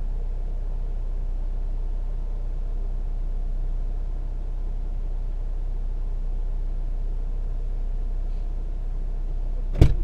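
Car engine idling, heard from inside the stopped car's cabin as a steady low hum. A single sharp knock right at the end.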